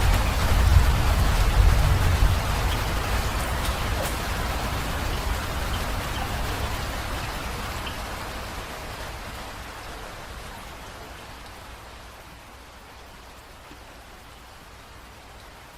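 Rain falling, heavy at first with a deep low rumble underneath, then easing gradually over about twelve seconds to lighter, steady rain.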